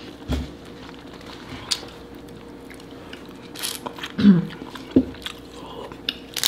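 Close-miked eating: chewing and biting into bread and crab meat, with scattered small clicks and taps. A brief hummed sound from one of the eaters comes about four seconds in, over a faint steady hum.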